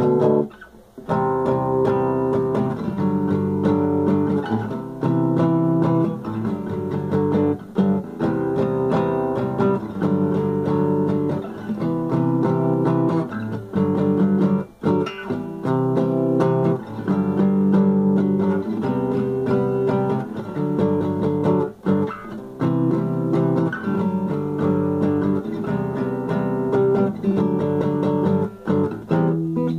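Acoustic guitar strummed in a steady rhythm, chords changing about every second or two, with a brief break about a second in.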